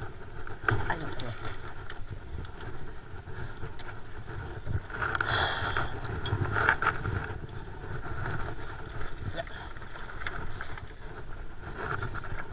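Wind rumbling on the microphone, with a few light knocks scattered through.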